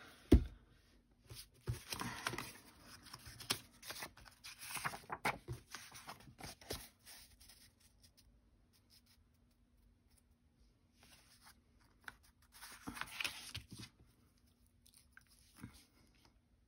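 Sheets and cut pieces of cardstock and patterned paper rustling and sliding as they are handled on a cutting mat. There is a sharp knock just after the start, and a quiet stretch in the middle before more paper handling.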